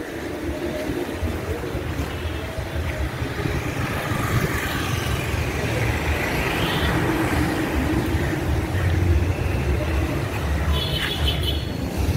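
Road traffic: motor vehicles running past with a steady, uneven low rumble, one passing more loudly in the middle.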